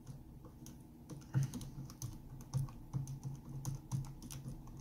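Keys tapped in an irregular run of light clicks, a few a second, starting about a second in: numbers being punched in to work out a calculation.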